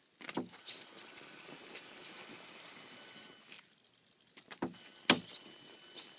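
RC car steering servo twitching on its own, giving a handful of short irregular clicks and buzzes, the loudest about five seconds in, with a faint steady high tone behind. The owner ties the glitching to the downgraded ESC firmware with the servo powered through the BEC.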